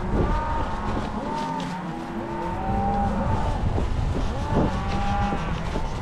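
Cattle bawling: many cows calling at once, their drawn-out calls overlapping and rising and falling, over a steady low rumble.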